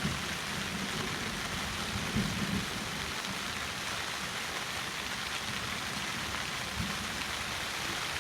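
Steady hiss of a heavy downpour of rain during a thunderstorm, with a couple of brief, faint low rumbles about two seconds in and again near the end.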